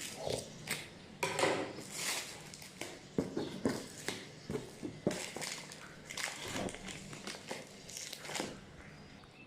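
Parcel packaging crinkling and rustling as it is opened by hand, a run of irregular scratchy rustles and crackles.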